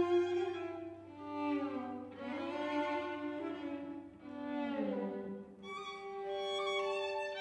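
A violin and a cello playing together in a chamber duo, long bowed notes in phrases that swell and fade, with a note sliding downward about two thirds of the way through.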